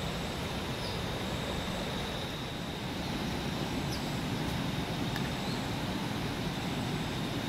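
Steady rushing of water, with an insect's continuous high-pitched trill over it.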